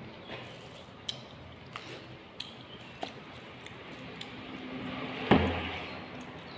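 Light clicks and taps of a clear plastic cup and dishes being handled at a meal table, with one louder thump a little after five seconds in.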